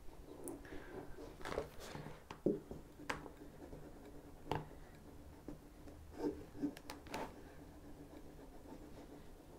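Faint rustling and crinkling of TPU-coated nylon fabric, with the tip of a Jamara Pro Star sealing iron scraping along a seam tape, and scattered short clicks over a faint steady hum.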